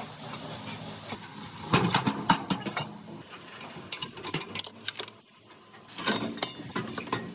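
Metal clinks and knocks of hand tools and parts being handled, in two bunches of sharp clicks.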